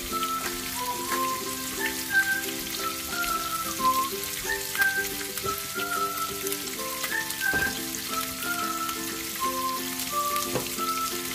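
Turkey bacon strips sizzling in oil in a frying pan, under background music playing a simple stepping melody. A few short knocks sound through it.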